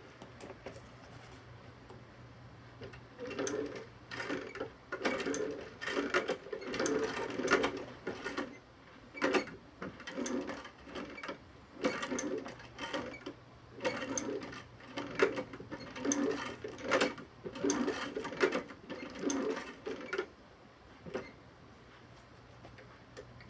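Sewing machine stitching through boot leather in a dozen or so short runs of a second or less, stopping and starting, over a steady low motor hum.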